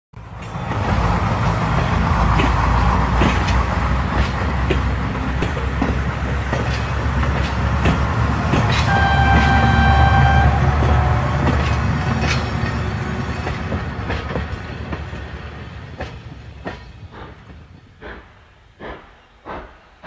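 A steam train running: a heavy rumble with clicks of wheels over rail joints, and a whistle blast lasting about a second and a half about nine seconds in. The rumble then fades and gives way to slow, evenly spaced chuffs, roughly three every two seconds, near the end.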